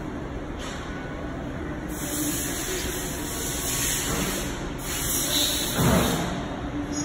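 Two long bursts of hissing, the first about three seconds long and the second about one and a half, over a steady machine hum, with a low thump just before the second burst ends.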